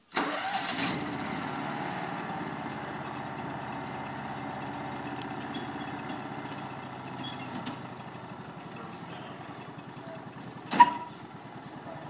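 John Deere Gator 4x2 utility vehicle's engine starting up and then running steadily at idle. There is a single sharp bang near the end.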